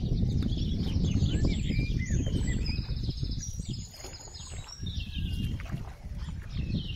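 A chorus of many wetland songbirds chirping, trilling and whistling. Underneath runs a low rumble, heaviest for the first few seconds and easing after about four seconds.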